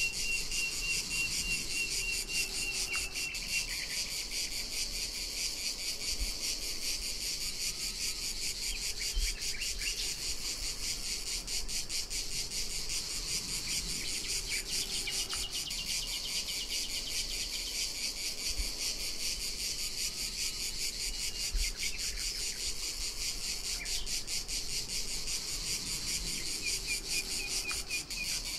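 Dense chorus of cicadas: a steady high-pitched buzz with a rapid pulsing texture that does not let up.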